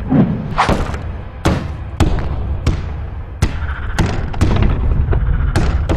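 A series of about ten sharp thuds at uneven intervals, roughly two a second, over a steady low rumble.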